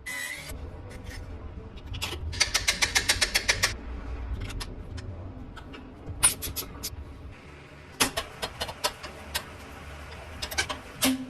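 Small motorcycle engine running with a steady low rumble, with a quick run of clicks about two seconds in and scattered sharp clicks near the end.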